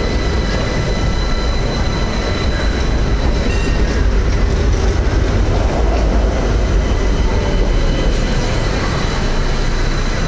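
A rail vehicle running close by: a steady low rumble with a faint, even whine above it.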